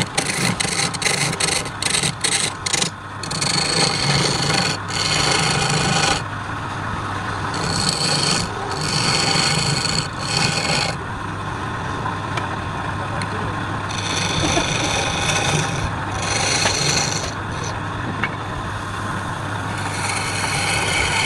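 Wood lathe running with a steady hum, and a hissing scrape each time the spinning wood is worked: quick short strokes at first, then longer passes lasting a few seconds each.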